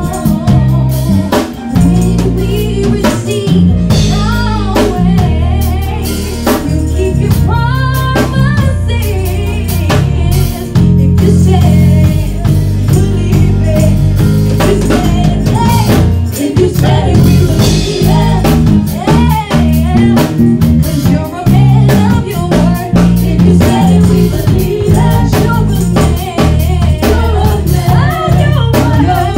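Gospel praise and worship song: women singing into microphones, a lead voice with backing singers, over drums and a heavy bass line.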